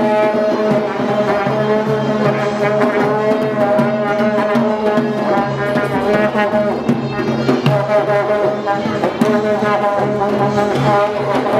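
Karnay, the long Uzbek brass horn, blowing long, steady blasts, over a higher melody and drum strokes.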